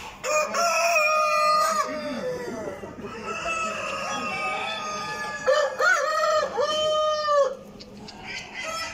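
Roosters crowing: three long crows one after another, the first and last the loudest.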